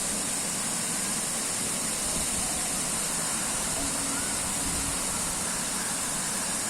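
Krang Suri waterfall's steady rushing water, an even hiss that doesn't change.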